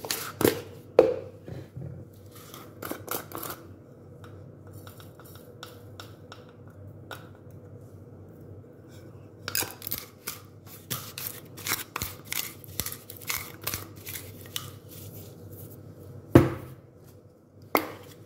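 Kitchen utensils and containers handled while seasoning is added to a bowl of raw eggs: scattered clicks and taps, a long run of quick clicks in the middle, and two sharp knocks near the end.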